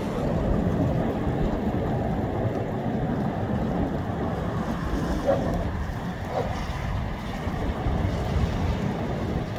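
Gusty wind rushing past and buffeting the microphone, a steady, mostly low-pitched noise with no clear breaks.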